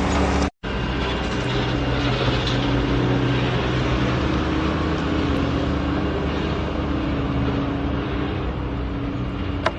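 Heavy-equipment engine running steadily under a loud mechanical din, with a sudden brief drop to silence about half a second in.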